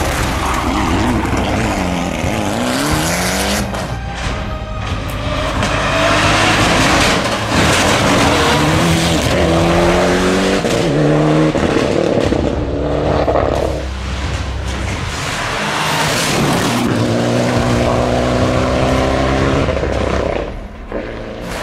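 Mitsubishi Lancer Evo X R4 rally car engine revving hard as it passes at speed, its pitch climbing and dropping back with each gear change, several times over.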